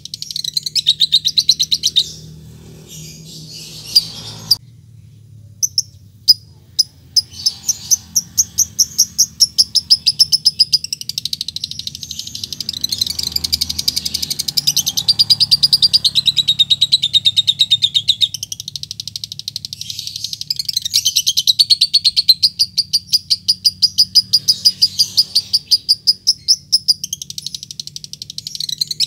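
Fischer's lovebird giving its rapid, high chattering song (ngekek), many chirps a second. About two seconds in it breaks off into a few separate loud ticks (ngetik), then from about seven seconds runs on in one long unbroken chatter, pausing briefly near the end.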